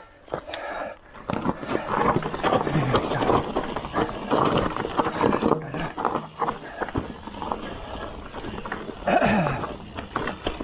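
Ragley Big Wig mountain bike rattling and clattering down a rough dirt trail, tyres rolling over roots and loose ground in a dense run of irregular knocks. Twice, about three seconds in and near the end, the rider lets out a short grunt.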